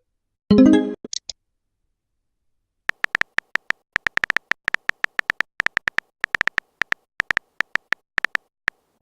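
Phone messaging-app sound effects: a short notification chime about half a second in, then after a pause a fast run of keyboard tap clicks lasting about six seconds, as a message is typed out.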